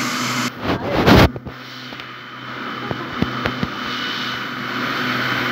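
Handling noise from the phone's microphone: a loud rustle and rub about a second in, then a few light taps, over a steady low hum.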